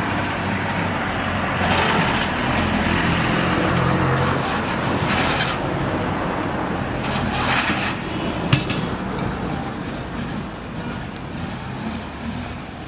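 Darjeeling Himalayan Railway B-class saddle-tank steam locomotive working slowly, with loud hisses of steam every two to three seconds over a low steady rumble. A single sharp clank comes about eight and a half seconds in.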